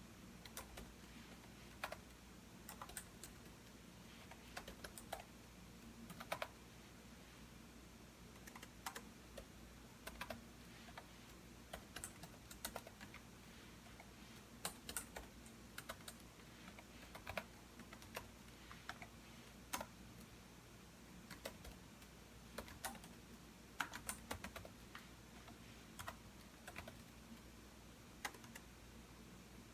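Typing on a computer keyboard: irregular runs of key clicks with short pauses between them, over a faint low hum.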